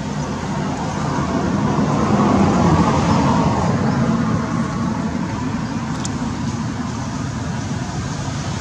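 Steady background noise of road traffic, swelling about two seconds in, as if a vehicle passes, then easing back.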